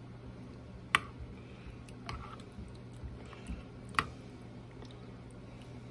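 Metal spoon stirring thick mole sauce with shrimp in a ceramic bowl: soft wet squishing of the sauce, with two light clinks of the spoon against the bowl, about a second in and about four seconds in, over a faint steady hum.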